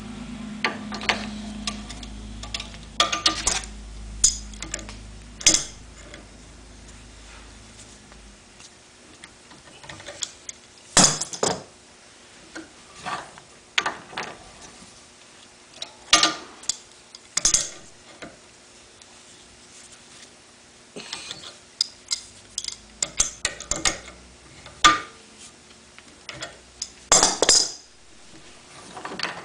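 Brass parts of a Panther truckmount's chemical pump clinking and tapping as they are handled, fitted together and set in a steel bench vise: scattered sharp metallic clicks in small clusters, with a low hum in the first several seconds that then stops.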